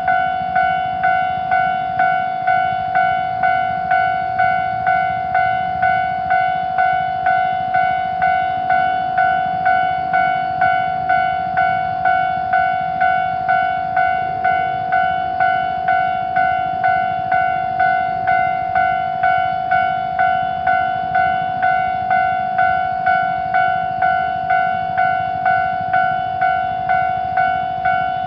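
Japanese railroad level-crossing warning bell ringing, a fast, even, single-pitched ding repeated about one and a half times a second, which signals that a train is approaching and the crossing is closed.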